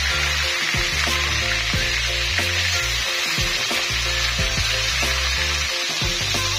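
Sliced onions sizzling steadily in hot oil in a steel karahi, frying toward light brown, over background music with a changing bassline.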